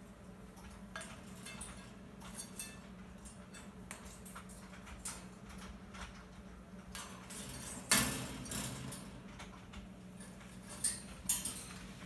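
Indian ringneck parakeet climbing the wire bars of its cage: scattered clicks, clinks and scrapes of beak and claws on the metal. The loudest is a scrape about eight seconds in, followed by two sharp clinks near the end, over a faint steady hum.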